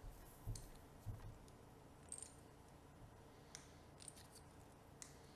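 Small mahogany wedges being scored with a utility knife and snapped in half by hand: a few faint, scattered clicks and scrapes.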